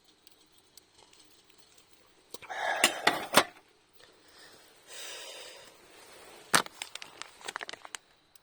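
Camp gear being handled: a loud rustle with a couple of sharp knocks about three seconds in, a softer rustle, then a sharp clink followed by a quick run of small clicks and taps near the end.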